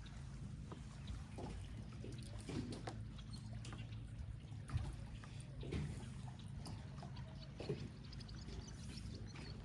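Water trickling and splashing with scattered small knocks, over a steady low hum.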